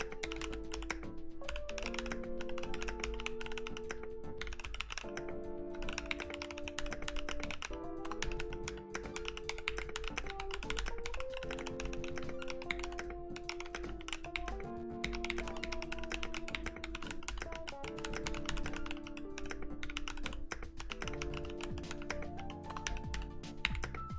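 Continuous fast typing on a mechanical keyboard: a clear NK65 fitted with lubed 62g Boba U4T tactile switches and dye-sub keycaps, giving an irregular run of keystroke clacks. Background music plays under the typing.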